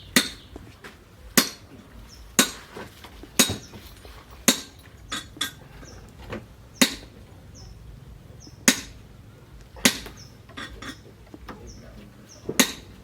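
A series of sharp strikes, about a dozen, roughly a second apart with a few quick doubles, each brief with a slight ring.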